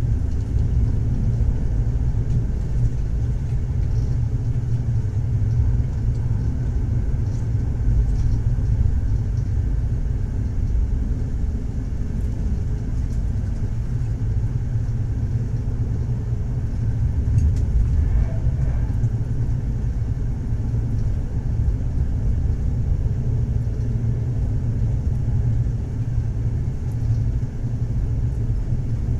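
A steady low rumble, with almost all of its energy in the deep bass and little change in level.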